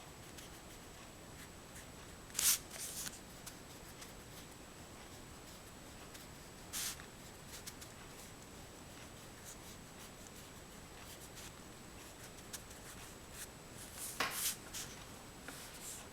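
Oil pastel scratching and rubbing on paper in short strokes: a few bursts about two and a half seconds in and near seven seconds, and a louder cluster near the end. A faint steady high whine runs underneath.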